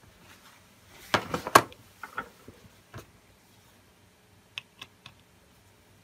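A small screwdriver and metal parts handled on a tabletop: a quick cluster of clicks and rattles about a second in, then a few light, sharp clicks near the end.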